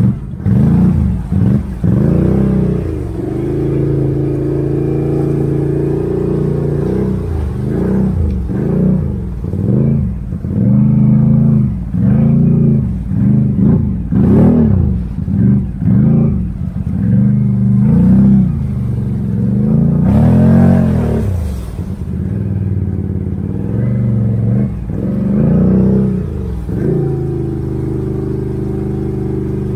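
Can-Am Outlander 650 ATV engine running through a Straightline Performance aftermarket exhaust, revving up and down over and over under throttle, with a steadier stretch about three to seven seconds in and again near the end. The exhaust note is loud, which the owner likens to a straight pipe.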